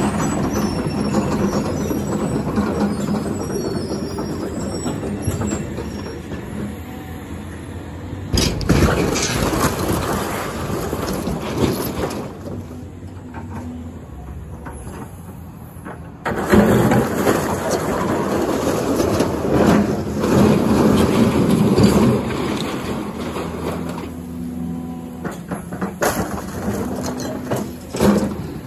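Caterpillar hydraulic excavator running while it tears down a building, with a steady engine hum. Louder noisy stretches of demolition debris crunching and crashing come about a third of the way in and again for several seconds past the middle.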